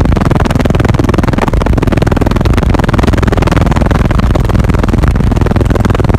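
Very loud, bass-heavy music played through a car audio system of eight Wolfram Audio PT-18 subwoofers in a sixth-order enclosure, heard inside the vehicle. The microphone is overloaded, so the music comes through as a distorted, clipped wash of noise.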